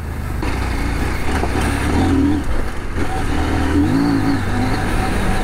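CF Moto 800MT Touring's parallel-twin engine running at low speed on a dirt track, under steady wind and tyre noise. The engine note rises and falls with the throttle about two seconds in and again about four seconds in.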